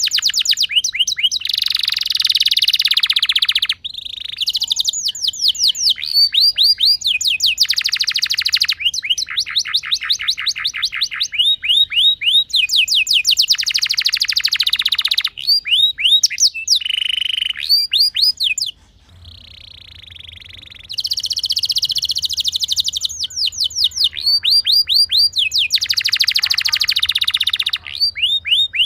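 Domestic canary singing a long rolling song: runs of quick down-slurred whistled notes alternating with fast, dense trills, with a short softer stretch about two-thirds of the way through.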